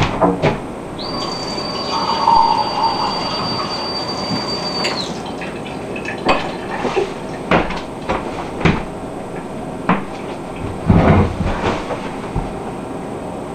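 Kitchen tap running for about four seconds, with a steady high-pitched whistle that slides in pitch as it is turned on and off, while water fills a glass. Scattered knocks and clunks follow: steps, a chair and the glass set on the table.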